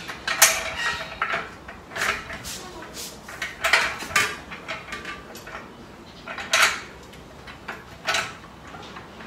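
Irregular metal clinks and knocks as black steel frame parts of a home exercise station are handled and fitted together by hand.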